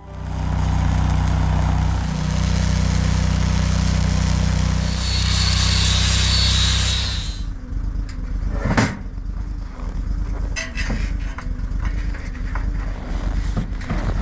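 A vehicle engine running loudly and steadily under a heavy rushing noise for about seven seconds, then dropping to a quieter, uneven running sound with a few sharp knocks.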